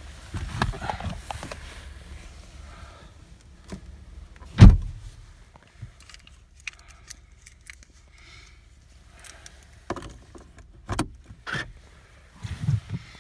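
Car keys jangling with scattered clicks and knocks, one loud knock about five seconds in; no engine is heard running.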